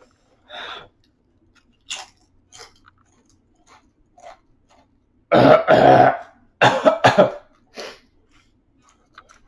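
A man coughing hard, with two loud pairs of coughs about five and seven seconds in after a few quieter short sounds; his throat is burning from ghost pepper chips.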